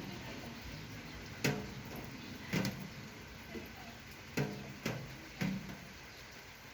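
A handful of short, sharp clicks and knocks, irregularly spaced, from parts and tools being handled and set down while servicing a suspension fork.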